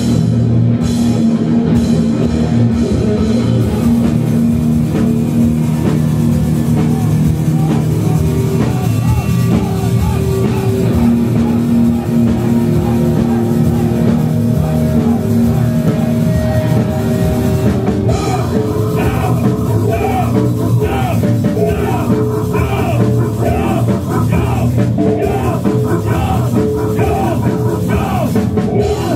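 A rock band playing live and loud, with drum kit and electric guitar going at a steady heavy-rock pace.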